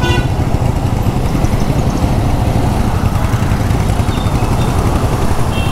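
Wind buffeting the microphone of a motor scooter riding in traffic, a steady deep rumble with the scooter's engine running underneath.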